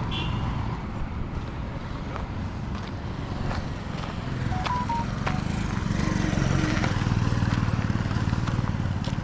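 Vehicle engine running while travelling along the road, with road noise, growing louder from about six seconds in.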